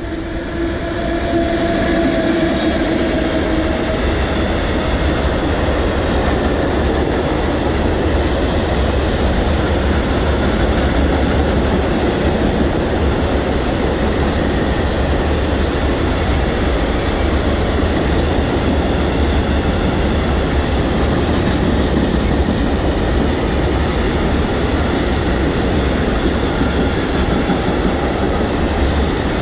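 Freight train of covered hopper wagons, hauled by an electric locomotive, passing close by: a steady mixed tone for the first few seconds as the locomotive arrives, then a loud, continuous rumble of wheels with clacking over the rail joints as the wagons roll past.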